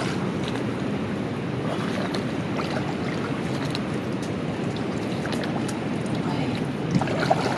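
Shallow water sloshing and splashing steadily around a person's legs and hands as he wades along a muddy bank and reaches into the water.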